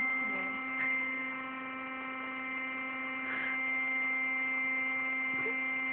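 Electric air pump running steadily as it inflates an air mattress: a constant motor hum with a high whine on top.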